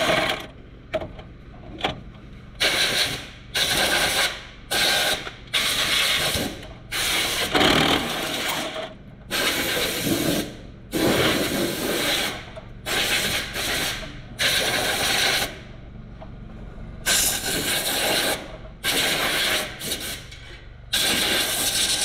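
A power tool running in short bursts of about a second, switched on and off around fifteen times, with a quieter gap a little after the middle.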